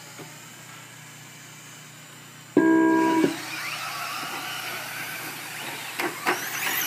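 A loud steady electronic beep lasting under a second, then the motor whine and dirt-tyre hiss of a field of RC short-course trucks racing, with a couple of sharp knocks near the end.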